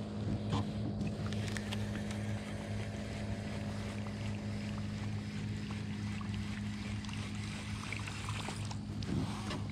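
A small boat motor running with a steady low hum, with a few faint clicks over it.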